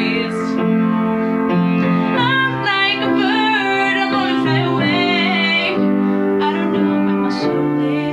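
Music: a woman singing long, wavering notes without clear words over sustained piano accompaniment, the voice strongest from about two to six seconds in.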